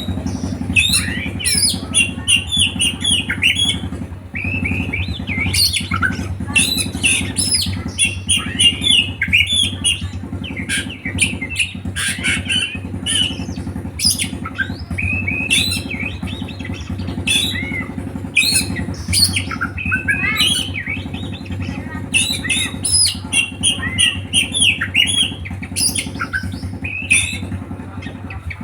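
A songbird singing a fast, varied, nearly unbroken song of short chirps, twitters and trills, over a steady low hum.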